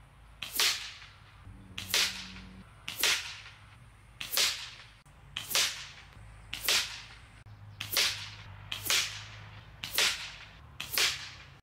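A swishing whoosh that falls in pitch, repeated about ten times at an even pace of a little over one a second, once for each pellet hole that appears in the target.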